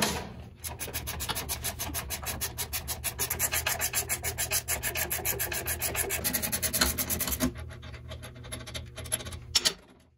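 A coil spring compressor being unwound with a ratchet wrench to release the front coil spring, making a fast, even clicking about eight times a second for some seven seconds. The clicking then slows and scatters, and ends with two loud knocks.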